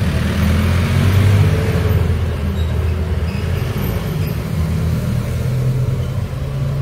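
Low, steady engine hum of a motor vehicle running nearby, loudest about a second in, its pitch rising a little in the second half.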